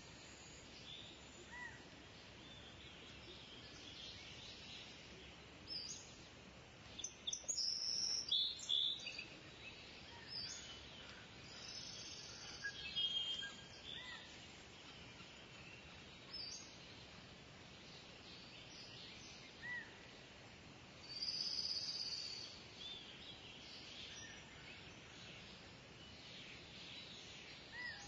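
Bird chirping and short calls at irregular intervals over a steady faint hiss, as in a recorded birdsong ambience, with busier bouts of calling about eight seconds in and again near twenty-one seconds.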